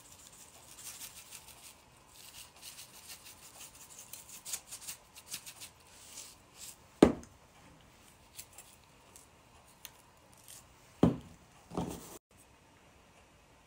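Spice shaker being shaken over raw steaks on a metal broiler pan: a quick run of small rattling ticks for the first several seconds. Then a few louder knocks, one about seven seconds in and two near the end, as things are set down.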